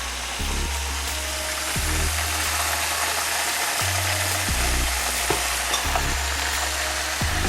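Chicken frying in hot oil: a steady, dense sizzle. Background music with a stepping bassline plays underneath.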